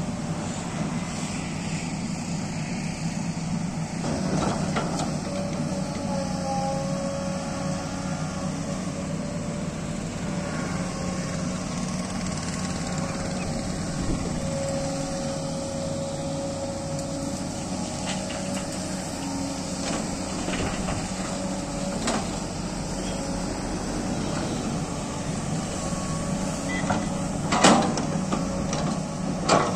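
SANY crawler excavator's diesel engine running steadily, with a whine that wavers up and down as the hydraulics work the arm. A few sharp knocks come as the bucket digs into soil and dumps it into a dump truck's bed, the loudest near the end.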